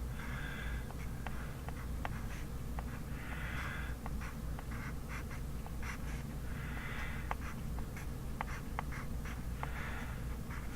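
Handwriting on paper for a kanji drill: four scratchy strokes of about a second each, roughly every three seconds, with many short ticks between them as the writing tip taps the page, over a steady low hum.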